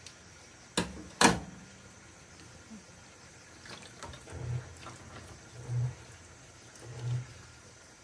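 Two sharp knocks about a second in, then a domestic cat's low, short cries repeating about every second and a quarter: a cat asking to be fed.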